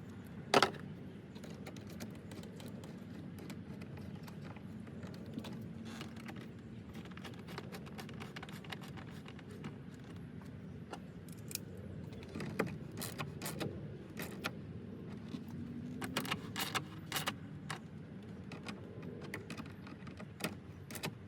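Scattered metallic clicks and clinks of hand tools tightening fasteners on a pickup's air intake, in clusters, with one sharp loud click about half a second in, over a low steady background hum.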